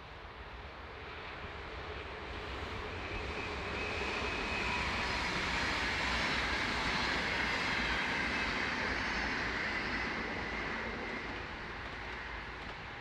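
Six-car NS VIRM double-deck electric multiple unit passing: a rush of wheels on rail with a thin whine mixed in, swelling as it approaches, loudest about six to eight seconds in, then fading as it moves away.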